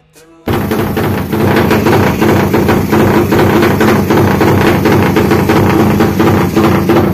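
Suzuki Satria FU drag bike's 450cc single-cylinder engine starts up loudly about half a second in. It runs at a steady fast idle with rapid, uneven pulses from the exhaust.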